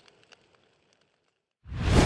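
A dramatic sound-effect swell with a deep rumble, rising quickly over about half a second near the end and cutting off abruptly. Before it, faint crackling dies away into near silence.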